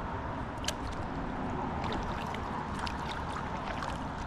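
River water moving against a plastic kayak hull in a steady wash, with a few light clicks from the fishing gear.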